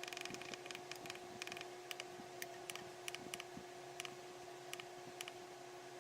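Repeated light clicks of the FrSky Taranis X9D transmitter's menu buttons being pressed, several a second at irregular spacing, over a faint steady hum.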